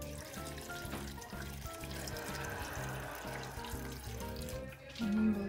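Water pouring from a plastic pitcher into a blender jar of chopped vegetables, a steady splashing trickle over background music, with a louder sliding note near the end.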